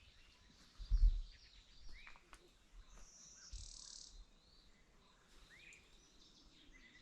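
Scattered bird chirps, a few short curved calls, over quiet outdoor background noise, with a low thump about a second in.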